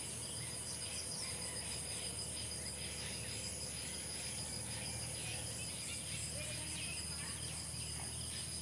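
Insects trilling steadily in several high-pitched tones at once, some in fast even pulses, over a low steady rumble.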